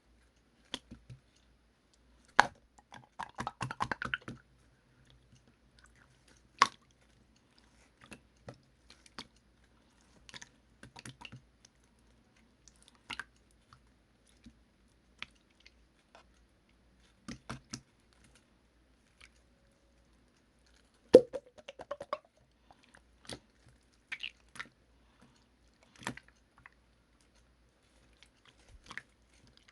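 Slime being squeezed and pressed by hand: scattered wet clicks, pops and squelches, with denser runs of squishing about three seconds in and again around twenty-one seconds.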